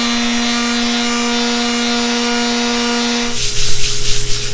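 Vibratory palm sander running steadily with a pitched hum, grinding a sheet of glass into a ground-glass focusing screen. About three seconds in the hum stops and a louder, uneven rubbing hiss takes over.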